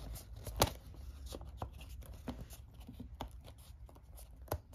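Thick cardboard board-game tile being pushed into and popped out of its punchboard sheet: small scattered clicks and rustles of cardboard, with a sharper snap about half a second in and another near the end.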